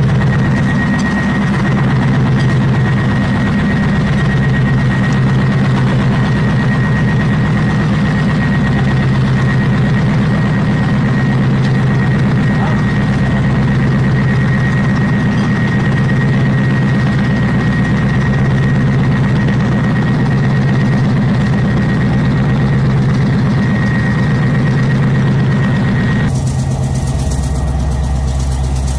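PzH 2000 self-propelled howitzer's MTU V8 diesel engine idling: a steady low rumble with a thin, steady high whine over it. Near the end the whine stops and the sound turns duller while the low rumble runs on.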